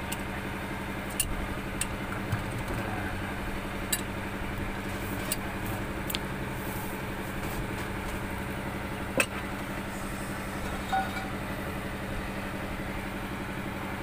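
An engine idling steadily, with a few sharp metallic clinks of an adjustable wrench against hydraulic hose fittings, the loudest about nine seconds in.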